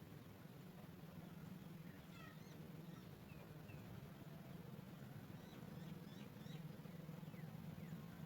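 Faint, high, short chirps of small birds in two brief clusters, over a steady low hum.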